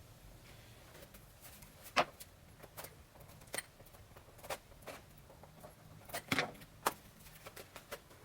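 Camera cage parts and packaging being handled by hand: scattered clicks, taps and light knocks, with the sharpest knock about two seconds in and a cluster of them around six to seven seconds.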